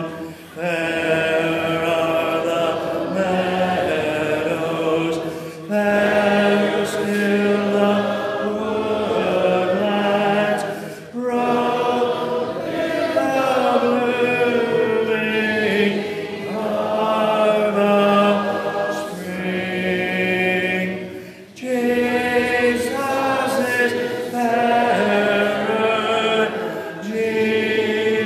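Congregation singing a hymn a cappella, with no instruments, led by a man at the microphone. The singing breaks off briefly between lines.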